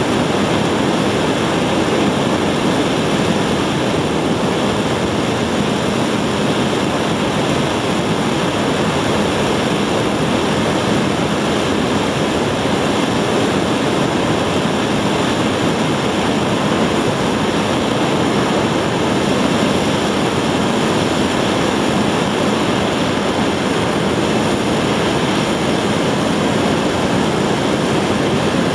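A 75-tonne-thrust kerosene and liquid-oxygen rocket engine firing on a test stand, mid-burn in a 145-second full-duration test: a loud, steady rushing noise that does not change.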